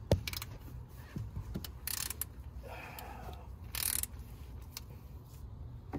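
Oil filter wrench and gloved hand working the oil filter loose: a sharp click at the start, a few faint knocks, and two short rustling hisses about two and four seconds in.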